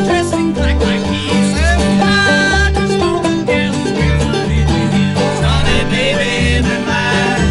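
Old-time bluegrass string band playing live with no singing: acoustic guitar, upright bass plucking a steady bouncing beat, and banjo.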